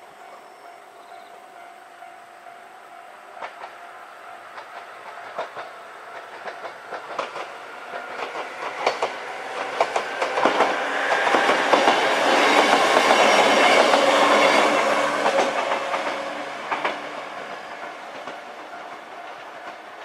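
JR West 103 series 3500 electric train passing, its wheels clicking over the rail joints. The sound grows louder to a peak about halfway through and fades as the train moves away. A level-crossing warning bell rings steadily throughout.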